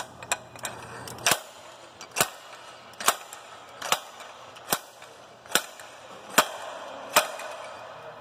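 A bearing seating tool is driven by hand against the input shaft bearing of an Eaton Fuller 10-speed transmission, giving a steady run of about eight sharp knocks a little under a second apart. The bearing is being seated on the shaft until the snap ring groove is exposed.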